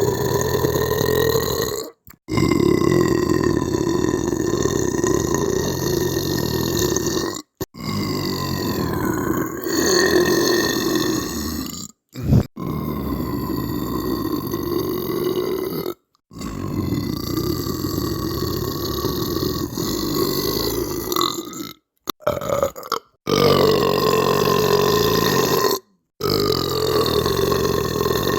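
A person belching: a run of long, drawn-out belches lasting about four to five seconds each, each holding a steady low pitch, one after another with brief dead-silent gaps between them.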